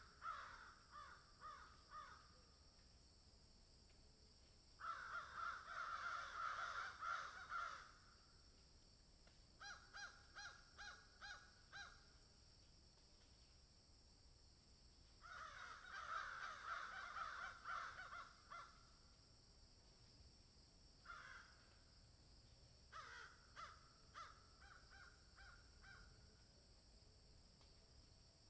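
Magpies and crows calling: harsh, rapid chattering calls in two long runs of about three seconds each, with shorter strings of spaced calls in between and quiet gaps.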